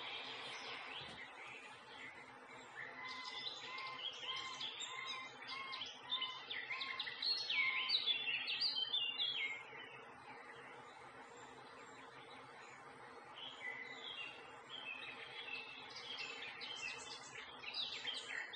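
A chorus of songbirds chirping and singing. Several birds overlap, busiest in the first half, with a run of evenly spaced lower notes. The chorus thins out around the middle and picks up again near the end.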